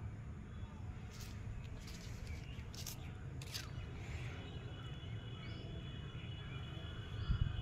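Outdoor background noise: a steady low rumble with faint bird chirps, and a few brief soft clicks and rustles in the first half.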